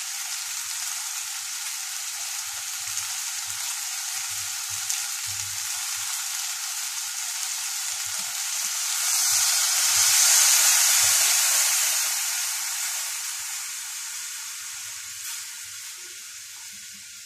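Diced potatoes and leeks frying in butter in a saucepan, sizzling steadily. About halfway through, the sizzle swells loudly as chicken broth is poured into the hot pan, then dies away slowly as the liquid cools it.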